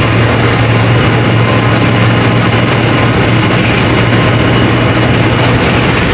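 Mercedes-Benz OF 1721 BlueTec 5 bus diesel engine running steadily, a loud constant low hum with a dense mechanical and road noise over it.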